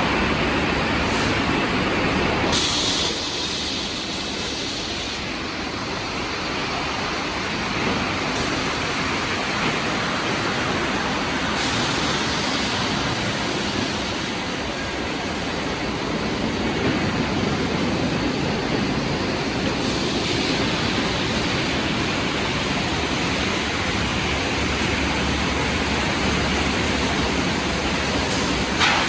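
Automatic sanding production line for magnesium oxide boards running: a steady, loud machine noise of sanders and conveyors. Its character shifts abruptly a few times.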